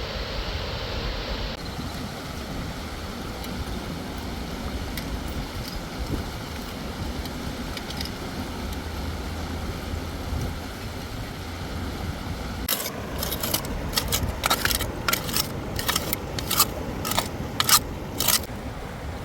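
Steady rush of river water. In the last third, an irregular run of about a dozen sharp clicks or snaps.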